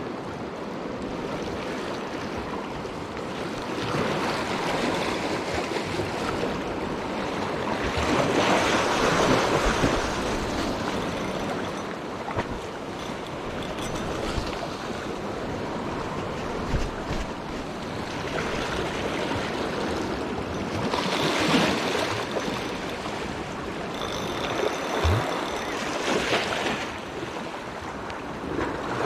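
Small sea waves washing in and breaking over shoreline rocks, the surf rising and falling in surges a few seconds apart.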